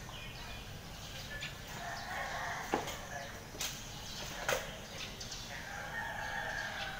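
Two drawn-out animal calls, each about a second and a half long, with three sharp knocks between them.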